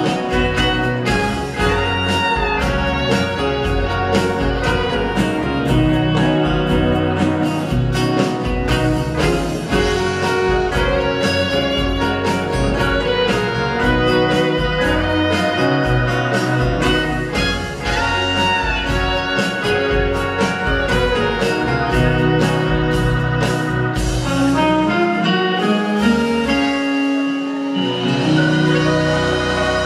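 Live band music: fiddle, electric bass, acoustic guitars and drums playing an instrumental passage, loud and steady. The lowest notes drop out for a few seconds near the end.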